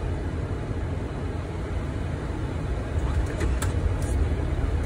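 Boeing 737 MAX flight deck at touchdown and landing rollout: a steady low rumble of airflow and wheels on the runway, with a few faint clicks about three to four seconds in.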